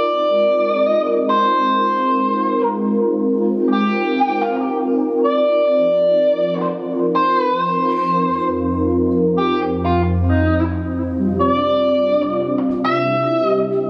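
Electric guitar, Stratocaster-style, playing a slow lead melody of long sustained notes with vibrato and pitch bends over held backing chords. A bass line comes in about eight seconds in.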